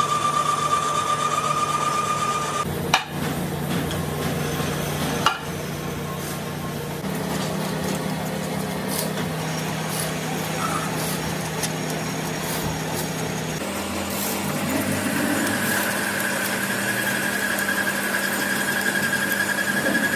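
Workshop machine tool running, a steady motor hum under a high cutting whine. The whine stops about three seconds in, two sharp clicks follow, and a higher whine sets in again a little past the middle.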